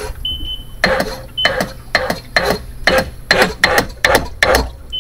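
Kawasaki jet ski's electric starter cranking on a booster pack, making a rhythmic rasping, clattering noise of about three to four strokes a second, with a short high beep early on. The owner traces the noise to the starter and takes the starter to be failing.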